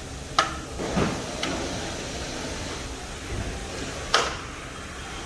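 A few sharp metallic clanks and knocks from tools working on a car wheel, with the loudest one about four seconds in.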